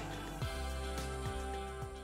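Background music, a steady run of pitched notes with no speech over it.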